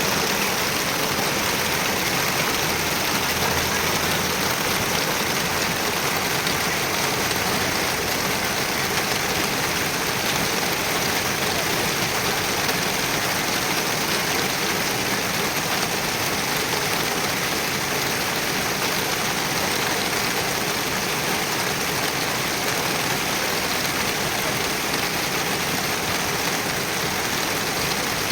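Heavy rain pouring down, a steady, even hiss with no let-up.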